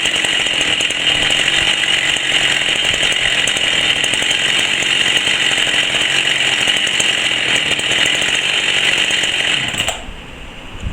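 Chainsaw engine running steadily at high speed, then stopping abruptly near the end.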